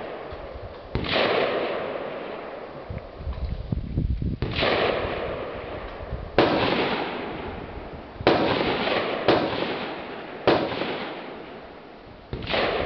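Rifle fired seven times at uneven gaps of one to two seconds, each shot trailing off in a long echo.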